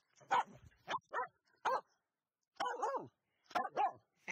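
Finnish Spitz giving four short, sharp yipping barks, then two longer whining yelps that bend up and down in pitch: the excited, eager noises of a happy hunting dog.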